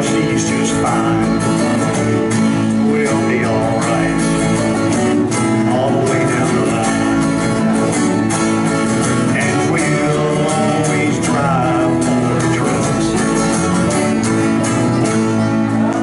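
Live country band playing: acoustic guitar strumming steady chords with electric guitars, and a wavering melody line over them.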